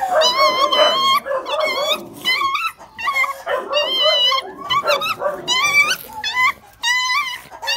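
Phú Quốc ridgeback puppies play-fighting, giving high, wavering yelps and whines in quick succession, about two a second.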